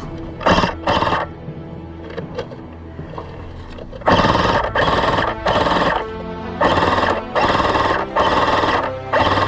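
Background music: a steady bed of sustained tones, two sharp hits about half a second and a second in, then from about four seconds in a run of loud, evenly spaced hits roughly every 0.7 s.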